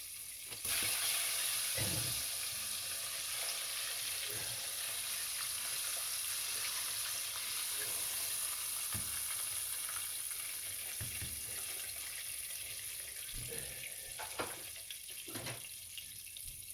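Chicken pieces deep-frying in hot oil in a pot, a steady dense sizzle that gets louder about a second in. A few faint low knocks can be heard under it.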